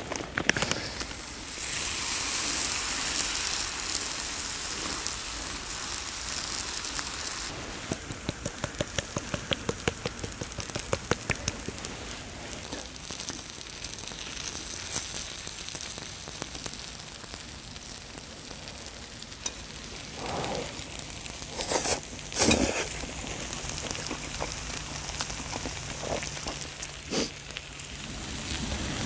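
Jjapaghetti noodles, sliced steak and green-onion kimchi sizzling in a hot black griddle pan, the sizzle loudest for the first several seconds. Metal tongs click against the pan in quick succession while the food is stirred, with a couple of sharper knocks later on.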